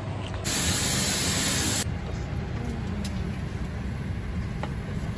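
Airliner cabin noise: a steady low rumble under an even hiss of air. About half a second in, a much louder rush of hiss starts and cuts off suddenly about a second and a half later.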